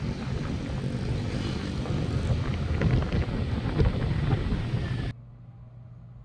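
Wind buffeting the microphone over vehicle engine and road noise while riding in open air through city traffic. The noise cuts off suddenly about five seconds in, leaving a quiet steady low hum.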